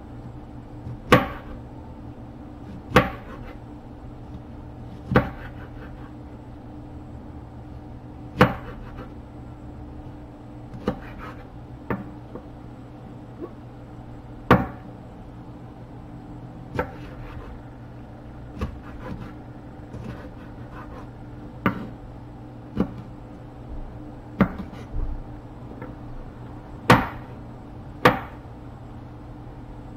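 Kitchen knife chopping vegetables on a wooden cutting board: sharp, irregular knocks of the blade striking the board, one every one to three seconds, over a steady low hum.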